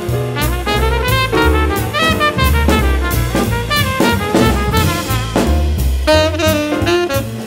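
Jazz music with saxophone and brass over a drum kit and a moving bass line.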